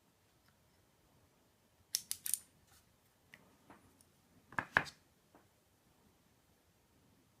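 Sharp little metallic clicks and taps of small lock parts and tools being handled as a pin-tumbler cylinder is taken apart: a quick cluster of clicks about two seconds in, a few faint ticks, then a louder pair of clicks near the middle.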